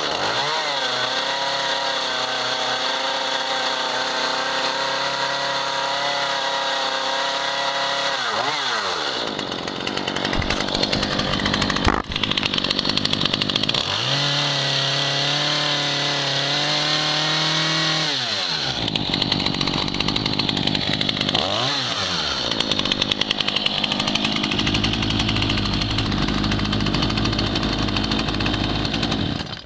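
Stihl MS 211 C two-stroke chainsaw engine revved up and held at high speed for several seconds, dropping back toward idle, revved again, then given one short blip. It settles to a steady idle and is shut off near the end.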